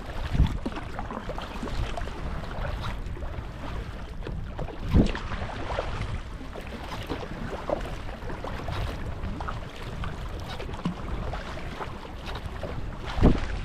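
Sea kayak paddling: paddle blades splashing and water washing against the hull, with wind rumbling on the microphone. Three louder brief thuds stand out, about half a second in, near the middle and near the end.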